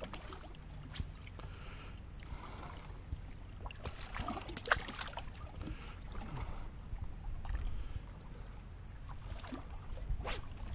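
Water lapping against a small fishing boat's hull over a low rumble, with a few sharp clicks and knocks, the loudest about halfway through and near the end.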